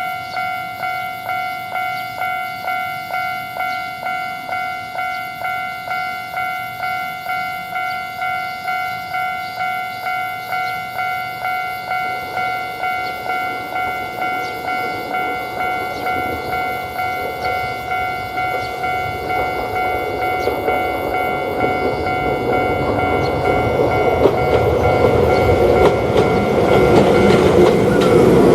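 Japanese level-crossing warning bell ringing its kan-kan in an even rhythm, a little under two strokes a second. An Ichibata Electric Railway train approaches under it, its rumble and wheel noise building from about halfway until it is the loudest sound near the end.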